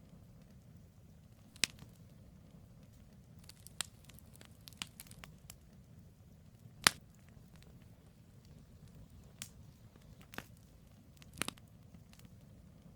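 Firewood burning in a campfire, crackling with scattered sharp pops, the loudest about seven seconds in, over a low steady rumble.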